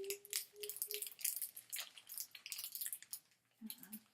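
Plastic toy packaging crinkling and crackling in the hands, a quick run of short rustles and clicks as a Shopkins pack is opened.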